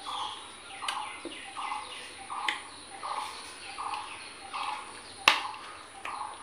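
A bird calling over and over, one short note about every three-quarters of a second. Three sharp clicks cut in, the loudest about five seconds in.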